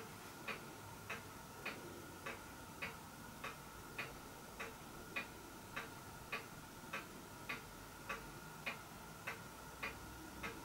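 A faint, regular ticking, a little under two ticks a second, over a faint steady high hum.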